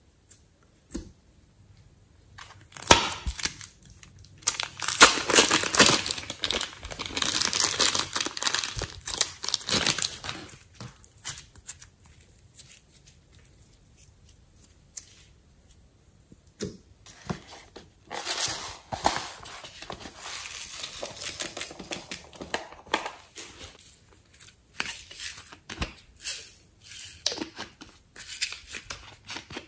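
Hands squishing and stretching slime and soft clay in a plastic tray, in two long stretches of sticky, crackly noise. Near the end come scattered short clicks and taps as glitter is sprinkled from small bottles.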